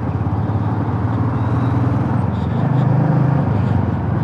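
Motorcycle engine running under way, with road and wind noise; the engine note rises a little about two and a half seconds in, then eases off.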